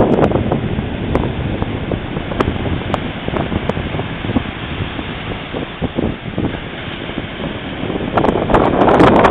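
Wind buffeting the microphone over the wash of ocean surf breaking on the beach; the gusts grow louder near the end.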